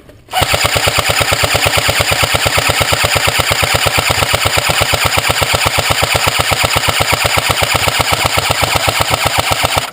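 Electric airsoft gun firing one long continuous full-auto burst, about ten shots a second, close by.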